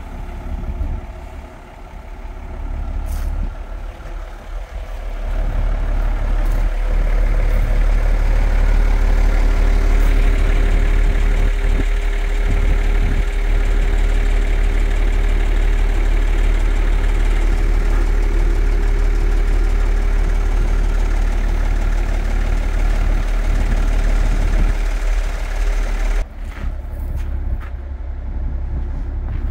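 International grain truck's engine idling steadily, louder from about five seconds in and dropping back near the end.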